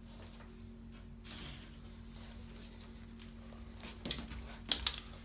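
Quiet room tone with a steady low hum. About four seconds in comes a short cluster of sharp clicks and taps, the loudest near the end.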